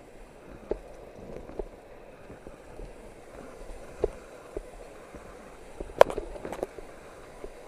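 Steady rush of a nearby waterfall, with scattered knocks and clinks from footsteps and climbing gear as a canyoner moves down a steep slope; the loudest knock comes about six seconds in.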